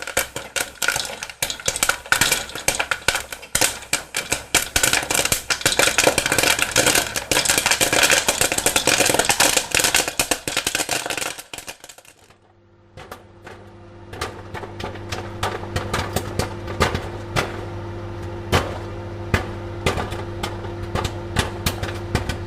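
Popcorn popping in rapid, dense pops. About twelve seconds in the popping stops, and a steady hum starts with scattered pops over it.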